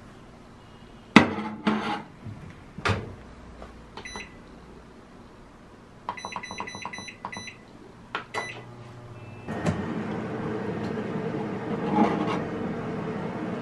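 Toshiba microwave oven being loaded and started: a few knocks of the door and the plate, then a quick series of short button beeps, followed by a thunk and the oven's steady running hum.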